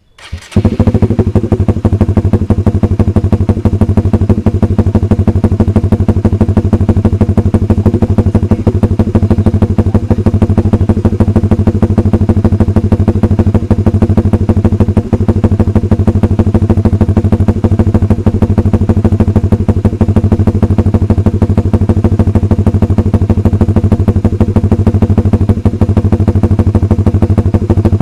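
Honda Supra GTR 150's single-cylinder engine starting up right at the start and then idling steadily through an aftermarket exhaust, an even, fast pulsing beat.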